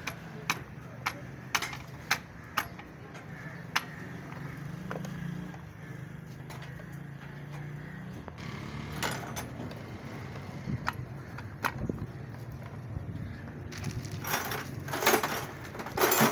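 Metal engine parts clicking and clinking as they are handled and fitted into an open motorcycle crankcase. Scattered sharp clicks give way to a louder run of metallic rattles near the end, over a steady low hum.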